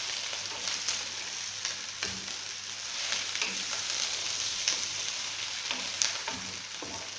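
Sliced potatoes and onions sizzling in oil in a wok while a wooden spoon stirs and turns them, with scraping and occasional sharp knocks of the spoon against the pan.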